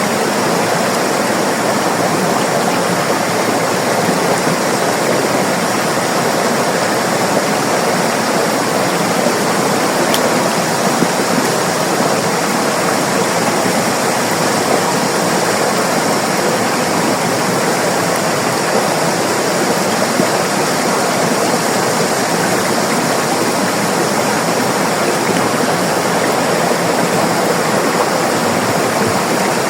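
River water flowing steadily: a loud, even rush without pauses.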